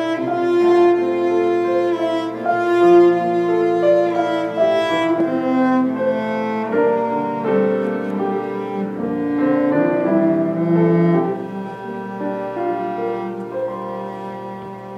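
Bowed cello playing a slow solo melody of long held notes over sustained chords, growing quieter over the last few seconds.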